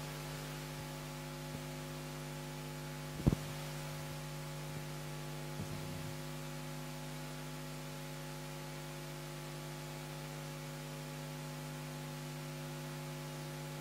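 Steady low electrical hum, made of several evenly spaced steady tones, with one short thump about three seconds in.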